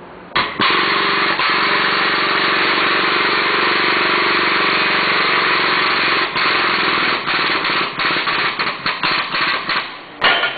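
Air-driven hydraulic pump of a Car-O-Liner frame-straightening bench running with a loud, rapid chatter while the tower's chain pulls on the car body. It runs steadily for about six seconds, then is switched on and off in short bursts as the pull is fed in a little at a time.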